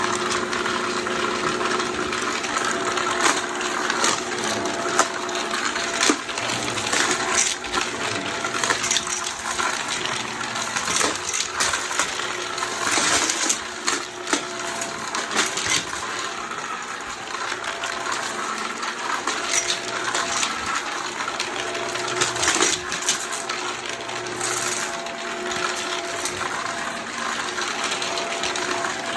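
Vacuum cleaner running steadily with a motor hum, its airflow rush punctuated by frequent sharp clicks and rattles.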